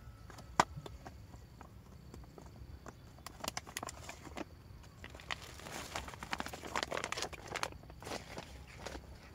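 Plastic bait packet rustling and crinkling, with small clicks and taps, while dry powdered fishing bait is measured out. One sharp click about half a second in, and busier rustling from about three to eight seconds in.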